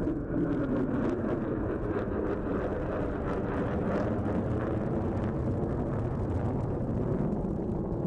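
An F-35A Lightning II's jet engine in flight overhead: steady, rumbling jet noise with most of its weight low.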